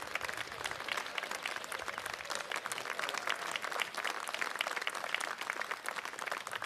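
A group of people clapping their hands in applause: dense, irregular claps at a steady level throughout.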